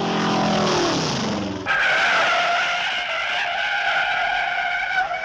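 Cartoon car sound effect: a pitched tone falls for about a second and a half, then gives way suddenly to a long, steady, high tire screech, a cartoon skid.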